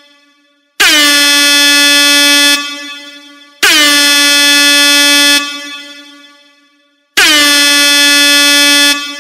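Air horn sounding three identical long blasts a few seconds apart, each with a slight downward bend in pitch at the start, then held steady and fading away in a tail.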